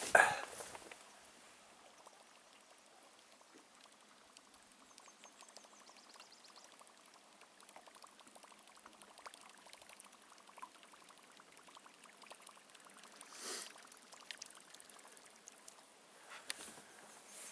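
Faint gurgling and splashing of a Whopper Flopper topwater lure's rotating tail churning the surface as it is reeled back. A short, louder splash comes right at the start as the cast lure lands, and another about 13 seconds in.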